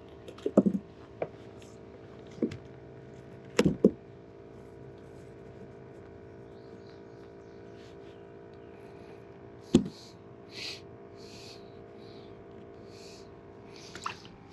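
Handling noises: a few sharp knocks and clicks in the first four seconds and once more near ten seconds, then several short swishy hisses, over a steady faint hum.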